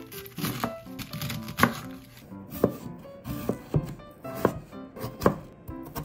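Kitchen knife chopping vegetables on a wooden cutting board, a sharp knock about once a second, over background music.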